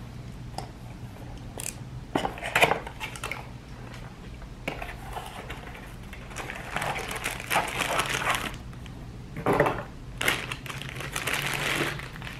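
Cardboard box and packaging being opened and handled: rustling and crinkling in irregular bursts, with a few light knocks as the part inside is taken out.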